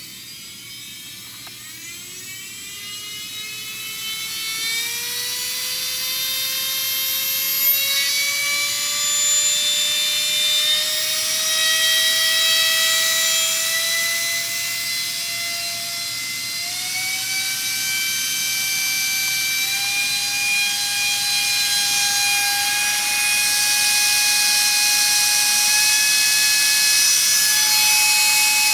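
Brushless CNC spindle motor driven by an ESC, spinning up in a speed ramp test: a whine that starts about a second and a half in and climbs in pitch, smoothly at first and then in a few distinct steps, getting louder as the speed rises.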